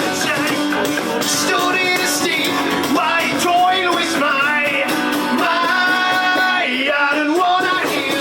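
Rock song with guitar and a singing voice over the band.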